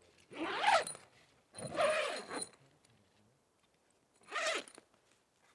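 Canvas bell tent's door zipper being unzipped from inside in three quick pulls.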